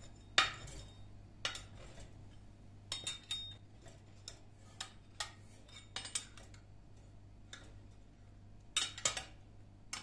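Metal cake server clinking and scraping against a glass baking dish as a bun is prised out: a dozen or so sharp clinks at irregular intervals, the loudest about half a second in and a quick cluster near the end.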